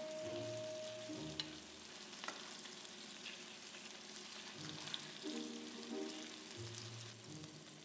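Chicken wings sizzling and crackling as they brown in fat in a stainless steel pot, with a few sharp ticks. Soft background music plays underneath.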